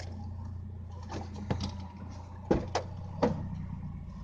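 A handful of sharp knocks and clicks, the phone camera mount being handled and pressed against the rear window glass, over a steady low car engine idle.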